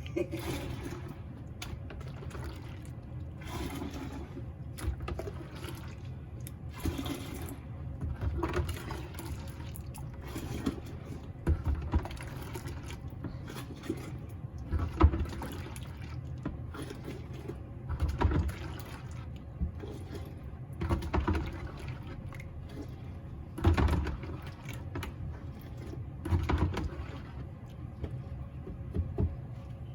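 Water sloshing and splashing in irregular bursts every second or two as tengusa seaweed (Gelidium amansii) is worked by hand in water.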